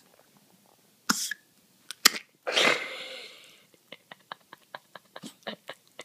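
Pomeranian coughing: a short sharp burst about a second in, two quick clicks, then a longer burst that trails off. After that comes a run of small quick clicks, about five a second.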